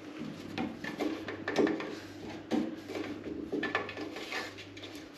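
Irregular taps, knocks and scratches on a plywood stair tread as a hand and a cat's paws play at it from either side, over a steady low hum.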